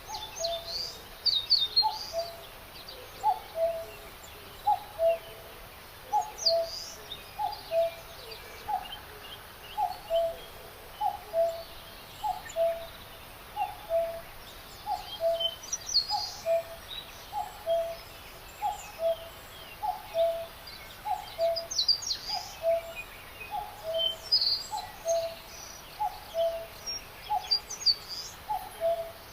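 Birdsong: one bird repeats a low two-note call, the second note lower, about once a second, while other birds chirp and trill higher up. A faint steady hiss of outdoor ambience lies under it.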